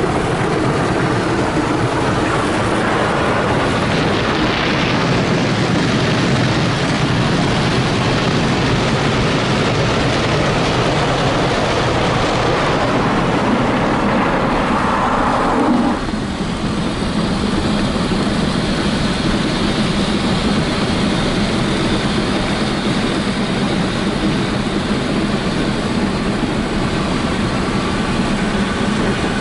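Belanger FreeStyler soft-touch automatic car wash heard from inside the car: a loud, steady rush of water spraying and pouring over the body and glass while the wash machinery runs. About halfway through the sound changes suddenly, dropping a little and then running steadier.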